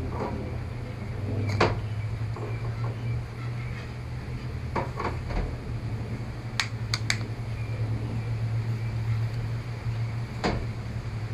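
Scattered sharp plastic clicks and taps, about seven or eight, as a thin tool pries at the seams of a Samsung Galaxy Tab 4's back cover, over a steady low hum.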